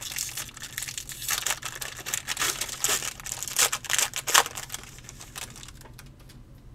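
Foil wrapper of a 2022-23 Donruss basketball hobby pack being torn open and crumpled by hand: dense crinkling and crackling, loudest around four seconds in, then tapering off to a few small clicks near the end.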